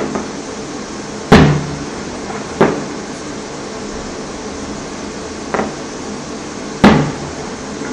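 Fireworks going off: five separate pops at uneven intervals, the loudest about a second in and near the end, each dying away quickly.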